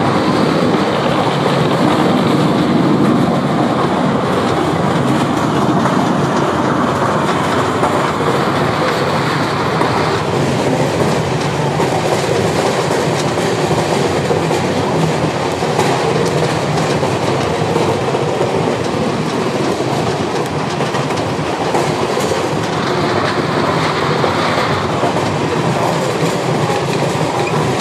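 A train running along its track, a steady, even running noise of wheels on rails.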